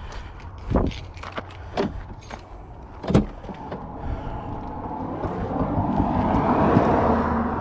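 Car sounds: a few knocks over a steady low engine hum, then a rushing engine and road noise that grows louder from about halfway in, as the car gathers speed.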